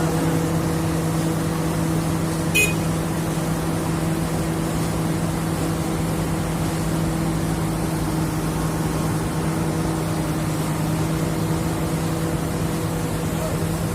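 An engine running at a steady speed, a constant low hum with a brief click about two and a half seconds in.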